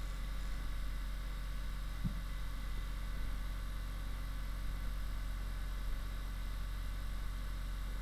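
Handheld percussion massager running steadily against the muscles of the lower back: an even motor hum with a fast, regular pulse.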